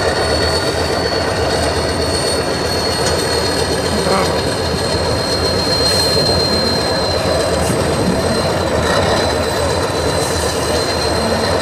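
Tatra 815 6x6 trial truck's diesel engine running steadily under load on a steep dirt slope, with a thin high whine over it.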